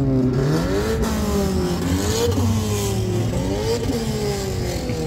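Sports car engines accelerating along the road, the engine note climbing and then dropping several times as they change gear.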